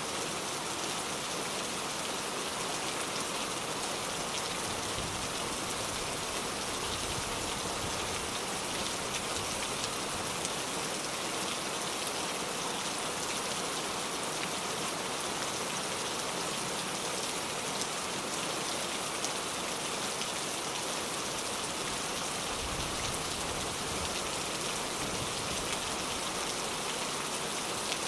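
Steady rain falling, dense with the sharp ticks of individual drops. A low rumble swells briefly twice.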